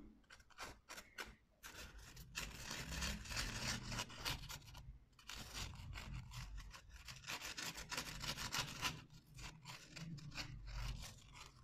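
Faint, irregular scraping and rubbing as the nozzle of a squeeze bottle of liquid silicone glue drags over a polystyrene foam disc held in the hand, with small clicks from handling the foam and bottle.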